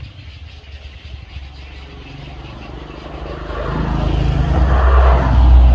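Engine of a vehicle or machine running with a low hum, growing louder from about halfway through and loudest near the end.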